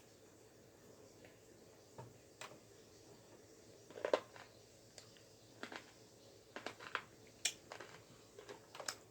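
Close eating sounds: scattered short clicks and crackles of chewing, lip smacks and handling of seafood boil food, coming in small clusters, busier in the second half.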